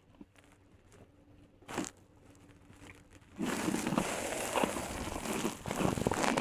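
A few seconds of near quiet with one short rustle, then a loud, close crackling and rustling, full of small clicks, starts about three and a half seconds in and keeps going.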